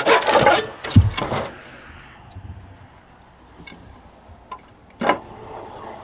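Handsaw cutting a wooden roof batten with quick, even back-and-forth strokes that stop within the first second, followed by a heavy thud. Then quieter, with a few light clicks and a sharp knock of wood near the end.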